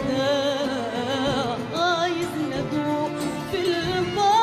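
Live Arabic song with orchestra: a woman's voice sings a long, ornamented melodic line with vibrato over the ensemble.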